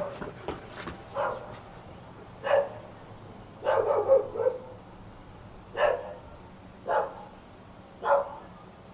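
A dog barking in short, separate barks about a second apart, with a quick run of several barks near the middle.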